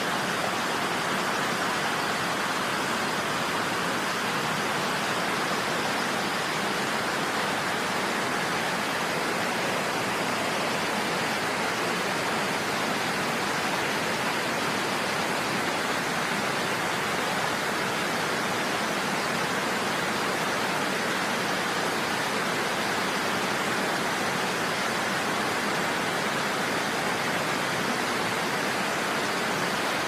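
Water rushing over a low concrete weir and gushing from several pipe outlets into churning white water: a steady, unbroken rush of falling water.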